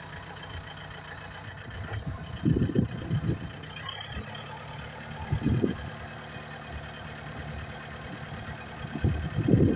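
Tractor engine running steadily, with brief louder surges about two and a half seconds in, around five and a half seconds in, and near the end.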